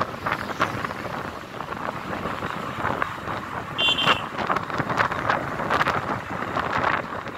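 Car on the move: steady road and engine noise with wind buffeting the microphone, and a brief high beep about four seconds in.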